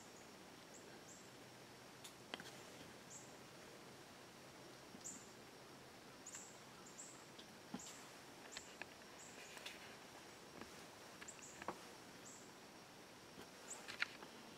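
Near silence with faint, short high-pitched chirps from small birds, coming every second or so at irregular intervals. A few soft clicks fall among them.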